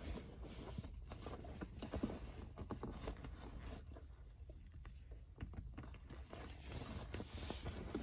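Faint handling noise from a stainless steel weighted shift knob being twisted tight by hand onto the car's gear lever: soft rubbing and rustling of the shift boot, with scattered small clicks.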